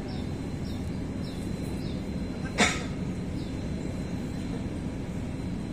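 Steady low rumble with one sharp knock about two and a half seconds in, and faint short high chirps repeating roughly every half second.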